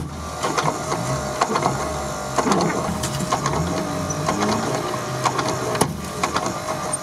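Snow and mud flung up by a stuck SUV's spinning wheels pelting the windshield and body, heard from inside the cabin as irregular ticks and small thuds over a steady low hum.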